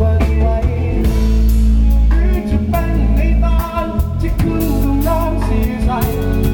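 A pop song with singing over a band: bass, drum kit and guitar with a steady beat.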